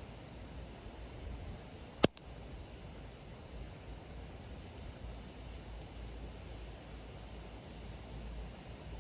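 Wood campfire burning with a steady low rumble, and one sharp pop from the burning wood about two seconds in, followed at once by a smaller one.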